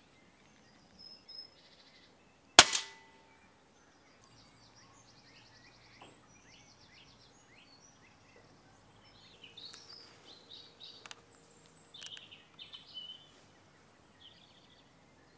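A single shot from a moderated Daystate Red Wolf PCP air rifle, a sharp crack with a short ring, about two and a half seconds in. Birds sing faintly afterwards.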